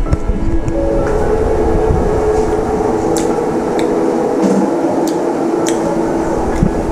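Loud steady mechanical rumble with a steady hum and a few sharp clicks.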